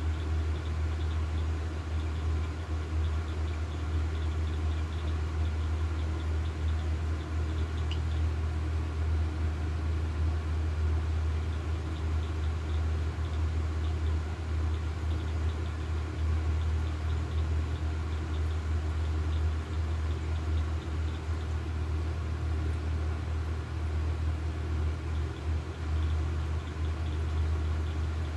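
A steady low mechanical hum that runs without change, with a faint higher whine over it.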